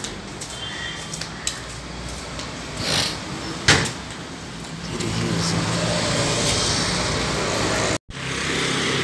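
Street traffic: motor vehicles running past, with a sharp knock a little before the middle. The engine noise grows louder from about five seconds in, then cuts off abruptly near the end.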